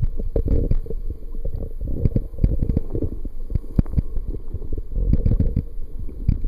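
Muffled underwater rumble of water moving around the camera, with many soft knocks and clicks scattered through it.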